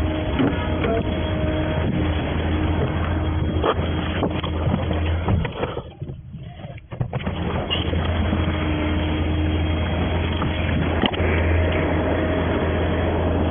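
Steady vehicle engine and road drone with a strong low hum, dropping away briefly about six seconds in before resuming.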